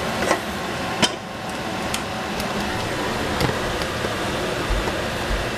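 Steady fan-like noise with a few sharp clicks and knocks of kitchen utensils and cookware, the loudest about a second in.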